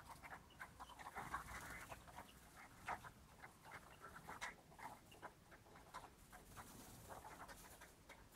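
Faint, scattered short sounds of pied greenfinches in an aviary: brief flutters and calls coming irregularly, a little louder around three and four and a half seconds in.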